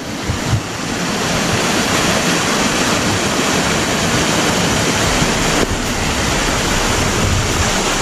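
Small waterfall pouring into a rocky stream pool: a steady, loud rush of falling water.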